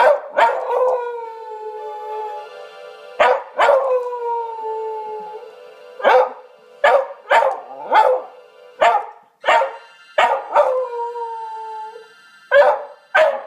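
Beagle mix howling along to an electric keyboard. Long howls slide down in pitch near the start, about three seconds in, and again about ten and a half seconds in, with a quick run of short, sharp sounds in between.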